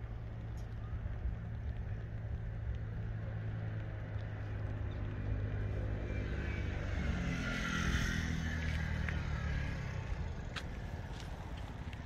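Steady low rumble of traffic, with a road vehicle passing close by from about six to nine seconds in. Its sound swells to a peak and fades as its pitch falls.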